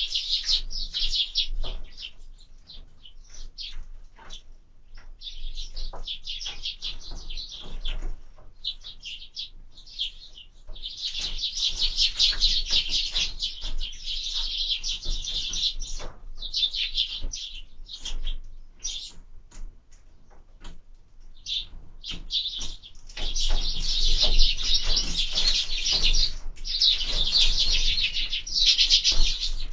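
A group of sparrows chirping busily at a feeder, in long bouts of dense, overlapping chatter with short lulls between, loudest about halfway through and again near the end. Short, light taps are scattered through it.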